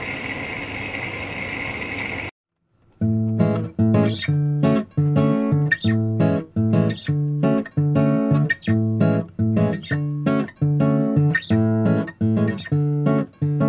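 An Electrolux front-loading washing machine running with a steady hum, cut off after about two seconds. Then background acoustic guitar music with strummed chords in a steady rhythm.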